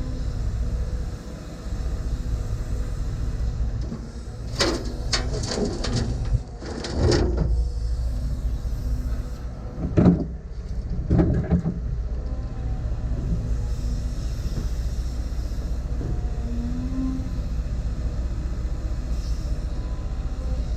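Diesel engine of a heavy earthmoving machine running steadily, with two spells of sharp squeaking and clanking about five and ten seconds in.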